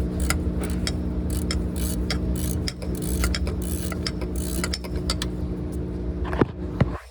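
Ratchet wrench clicking in quick, uneven runs as a 12 mm bolt is turned to slacken the fan belt, over a steady low hum. A sharper knock comes near the end.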